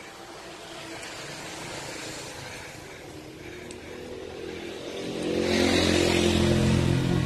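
A motor vehicle's engine passing by. It builds slowly and is loudest over the last two seconds, with a steady engine note.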